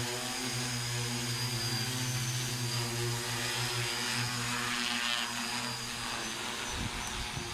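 Multirotor agricultural spray drone flying low, its propellers and motors giving a steady pitched drone with a thin high whine above it. The hum eases slightly as the drone moves away, and an irregular low rumble comes in near the end.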